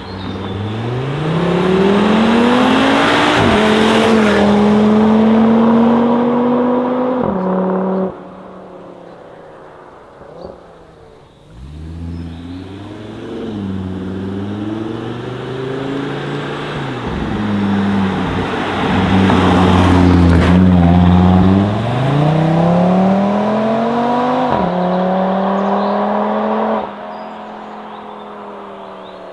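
Audi RS3 8Y's 2.5 TFSI turbocharged five-cylinder with an Akrapovic exhaust accelerating hard as the car passes, its note rising in pitch through the gears with short drops at each upshift. It cuts off abruptly about eight seconds in. A second long acceleration follows, loudest past the middle, and cuts off abruptly near the end.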